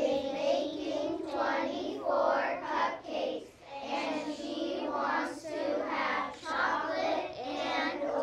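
A class of young children reading a math word problem aloud in unison, many voices chanting the words together in a steady, sing-song rhythm.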